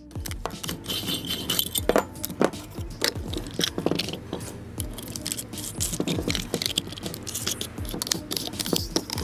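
Irregular metallic clinks, scrapes and rattles as a cut-off wheel is handled and fitted by hand onto a cordless angle grinder's spindle, with a brief hiss about a second in.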